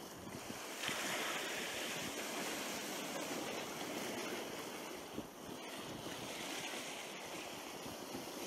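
Sea waves washing against shore rocks, mixed with wind: a steady rush that picks up a little about a second in.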